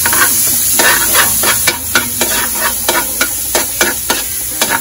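Onion and garlic sizzling in hot oil in a wok, with a spatula scraping and knocking against the pan about three times a second as they are stirred.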